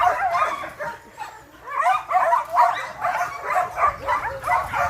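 Dogs yipping and whimpering in rapid, high, arching calls, with a short lull about a second in.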